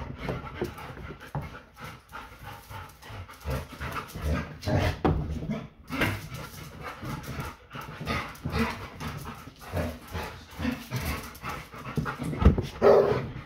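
Labrador retrievers panting in uneven runs of breaths close by. Near the end comes a sudden louder sound and a brief whine.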